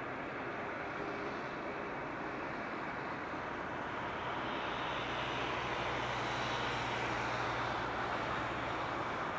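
Jet engines of an Airbus A380 (Rolls-Royce Trent 900) running, a steady rushing roar with a low hum. It grows louder and brighter over the first several seconds and is loudest a little past halfway.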